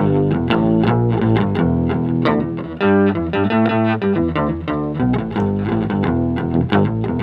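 Electric guitar played through an Electro-Harmonix Micro POG polyphonic octave generator, with the sub-octave blended in so a note an octave lower sounds under each picked note. The notes come in a run of about two a second, with a heavy low end.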